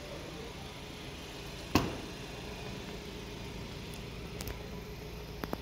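Range Rover Evoque's 2.0-litre four-cylinder petrol mild-hybrid engine idling steadily, with one sharp thump about two seconds in and a couple of light clicks near the end.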